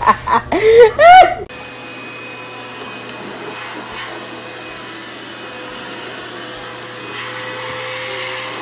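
A voice laughing and crying out, then about a second and a half in, a handheld cordless vacuum cleaner running steadily: a rush of air with a thin steady motor whine, a little louder near the end.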